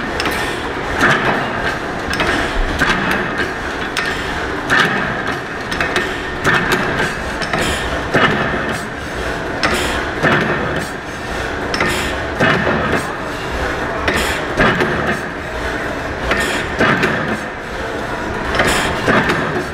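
1869 Otto & Langen atmospheric free-piston gas engine running. Its mechanism and clutch make a continuous clatter, with sharp knocks repeating every second or two.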